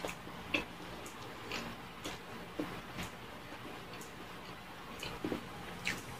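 Close-up chewing of a soft donut: scattered wet mouth clicks and lip smacks at irregular intervals, one every half second to a second or so.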